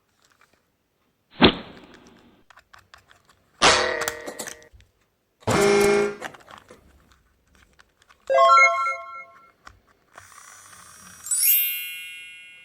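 A string of short, separate sound effects: a sharp hit, two brief pitched blasts, a run of bell-like chime tones, and near the end a rising shimmering sparkle that rings on.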